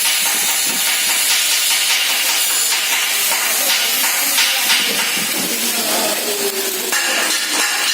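Welding in progress: a steady, loud crackling hiss.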